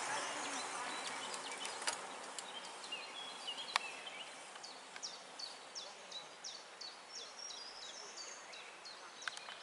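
Woodland songbirds singing over a steady outdoor hiss, one bird repeating a rapid run of short high notes, about three a second, in the second half. A few sharp clicks are heard, one about two seconds in and another near four seconds.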